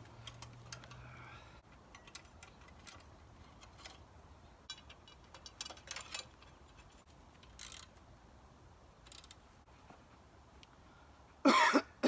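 Light metallic clicks and ticks of hand tools on steel as the cultivator's sweeps are loosened and turned to face inward, scattered and irregular. Near the end there is a short loud vocal sound.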